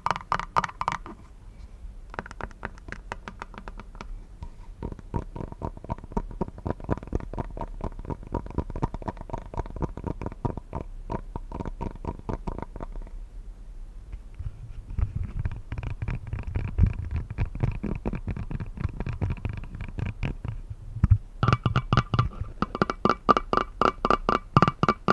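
Rapid tapping and scratching on a glass coffee cup, a dense run of small clicks over a faint ringing tone from the glass. There are short pauses about a second in and about halfway through.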